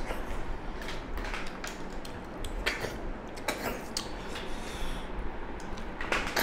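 Eating with bare hands from steel plates: scattered short clicks, taps and sucking sounds as freshwater snails in curry are picked up, sucked from their shells, and fingers and shells knock on the metal plates.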